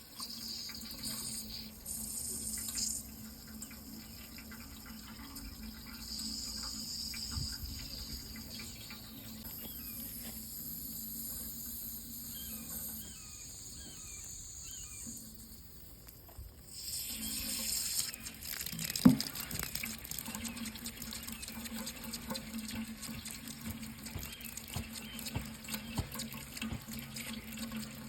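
Water running steadily, with the flow sound dipping briefly and coming back fuller about seventeen seconds in, and a single sharp knock a couple of seconds later.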